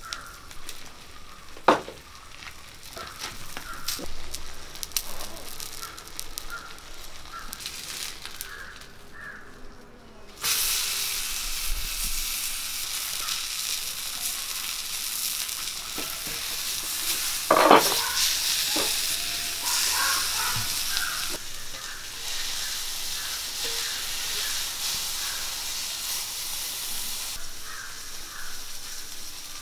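Banana-leaf parcel of pearl spot fish sizzling on a hot iron tawa, a steady hiss that grows louder about ten seconds in. There are two sharp knocks, a faint one near the start and a louder one just past halfway.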